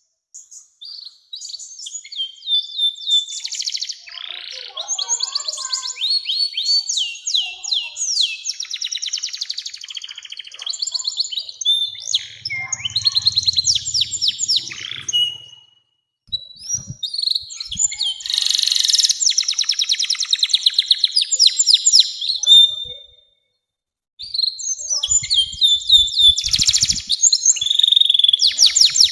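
Domestic canary singing long phrases of rapid rolling trills and chirps, broken by two short pauses, about halfway through and again some seconds later.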